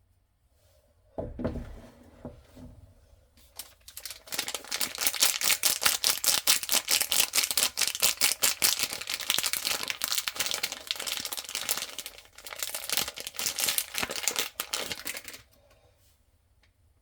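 Packaging of a bar of soap being torn and crinkled open. A dull thump comes about a second in, then about eleven seconds of dense, rapid tearing and crinkling that stops suddenly.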